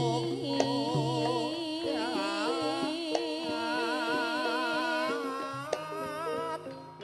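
Javanese gamelan ensemble playing, with a woman singing over it in a wavering, ornamented line. Sustained struck-metal tones run underneath, and a few sharp drum-like strokes cut through.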